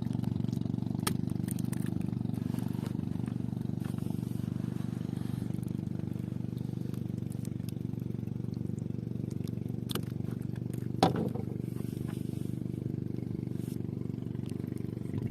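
An engine running steadily at constant speed. A few sharp clicks come over it, and a louder knock about eleven seconds in.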